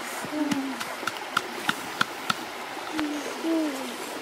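Stone pestle knocking in a coconut-shell bowl as chili peppers are crushed: sharp knocks about three a second, over the steady rush of a shallow stream. A few short low calls fall in pitch, the loudest about three and a half seconds in.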